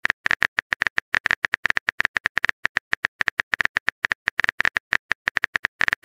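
Simulated phone-keyboard typing sound effect: a rapid, uneven run of identical tapping clicks, about ten a second, as a chat message is typed out.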